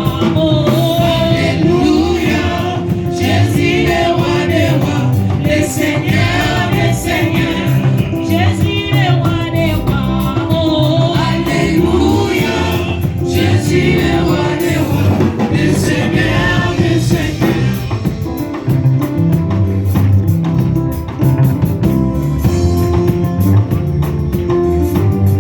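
Gospel worship music: singing that wavers on held notes over a steady, loud band accompaniment with a repeating low bass line.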